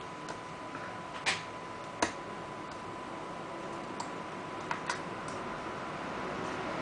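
Scattered light clicks and taps, about six in all with the two loudest in the first two seconds, from small tools and plastic netbook parts being handled during disassembly, over a steady hiss with a thin, steady high tone.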